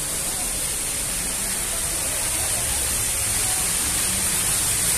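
A steady, even hiss with faint voices murmuring underneath.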